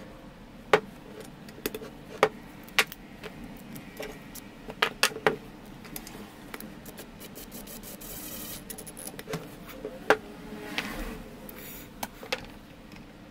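Metal table saw fence parts and hardware being handled and set against each other on a wooden workbench: an irregular series of sharp clinks and knocks, with some rubbing between them.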